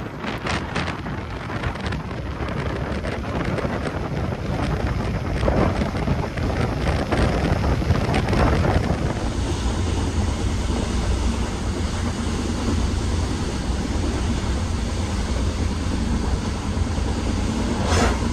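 Running noise of a moving passenger train's couchette car: a steady rumble of wheels on the rails with a few sharper clacks. About halfway through the sound turns smoother and more even, as heard inside the compartment.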